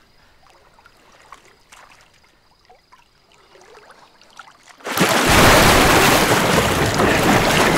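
A few seconds of quiet, then a loud, steady rushing noise that starts abruptly about five seconds in.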